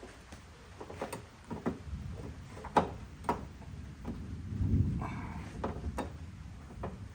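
Irregular metal clicks and knocks as a replacement lock cylinder is worked into a Fox-body Mustang's hatch lid, with one sharper clack in the middle and a dull low thump a little later.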